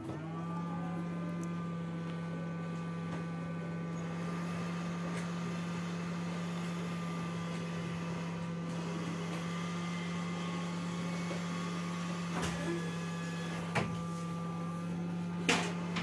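Hot-air SMD rework gun blowing steadily, its fan giving a steady low hum that comes up to speed just as it switches on; it is heating the solder to lift a small surface-mount component off a motherboard. A few sharp clicks come near the end.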